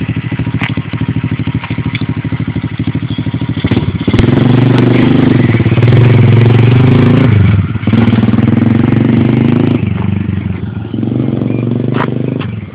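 Pit bike's small single-cylinder engine, newly fitted, idling and then opened up about four seconds in as the bike pulls away. It runs hard with a short break near the middle, like a gear change, then eases off and fades as the bike rides away.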